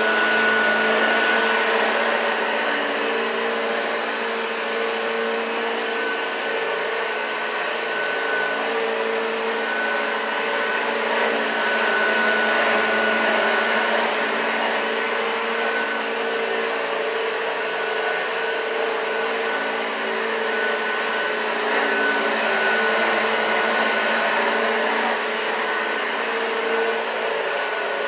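1986 Hoover Junior U1206 upright vacuum cleaner running steadily: a motor whine over airflow hiss, with a high tone that comes and goes and a gentle swell and dip in loudness.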